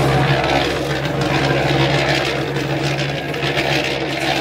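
Small electric motor of a miniature cement mixer running with a steady hum as it turns the drum.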